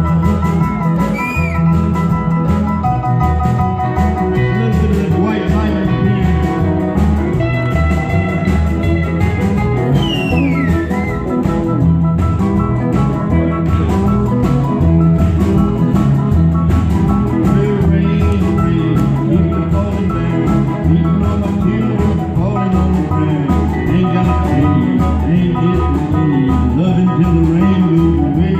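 Live band playing an instrumental break in a blues-rock song: electric guitar lead with bending notes over bass and a steady drum beat.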